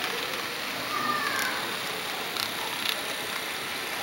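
HO-scale model freight train rolling past on the track: a steady rolling hiss of wheels with a few sharp clicks, and a brief high squeal about a second in.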